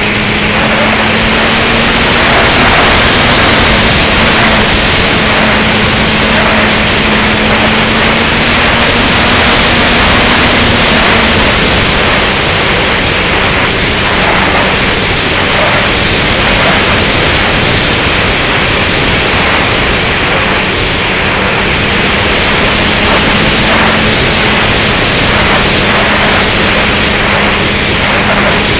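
Rushing wind noise on the microphone of the camera riding on a Flyzone Seawind RC seaplane in flight, with the steady hum of its electric motor and propeller underneath. The motor's pitch drops a little about a third of the way in and comes back up near the end.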